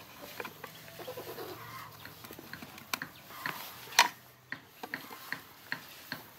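Sharp metallic clicks and knocks of a steel rod and hand tool working against a small single-cylinder engine block, with the loudest knock about four seconds in. Chickens cluck faintly in the background.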